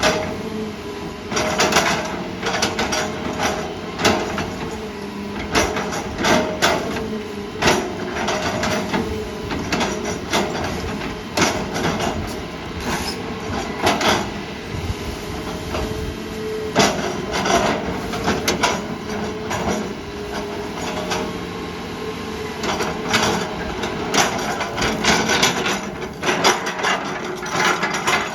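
Hydraulic excavator running under load, its engine humming steadily while the machine clanks and knocks again and again at irregular intervals.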